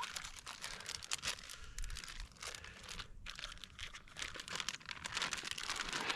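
Plastic Ziplock bag crinkling and rustling in irregular crackles as a coho salmon's egg skein is handled into it.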